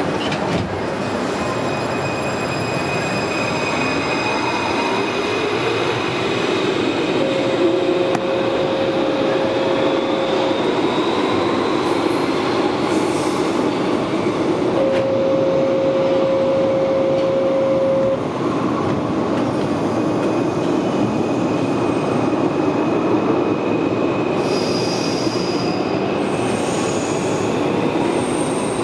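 Interior of an AS-02 metro train pulling out of a station and accelerating into the tunnel: the electric traction drive whines, rising in pitch, over the rumble of the wheels on the rails. A steady tone sounds twice, each for about three seconds, and high-pitched wheel squeals come near the end.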